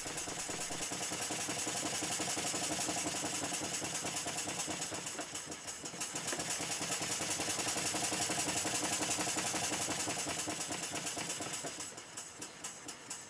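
PM Research 1/8-scale model steam drilling engine running fast with a rapid, even mechanical beat, its belt-driven flyball governor spinning. Near the end the sound drops in level and breaks into a slower, separate beat.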